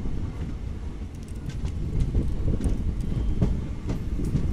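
Passenger train rolling along the track: a steady low rumble of the coaches, with scattered clicks and knocks from the wheels and couplings.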